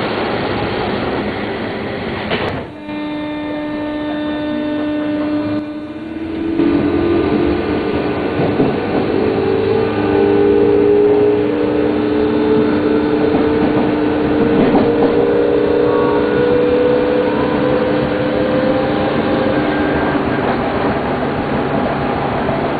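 Osaka Loop Line electric commuter train running with a steady rumble. A few seconds in the sound drops briefly, then the train's motors take up a whine that climbs slowly in pitch as it gathers speed.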